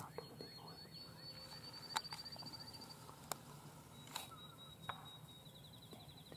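Faint calls of wild turkeys, with a few sharp clicks. Two long, high, thin notes run behind them, each ending in a fast trill.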